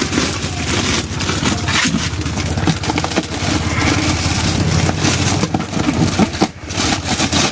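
A motor or engine running steadily at low speed, a rough low hum with faint scraping and clicks over it.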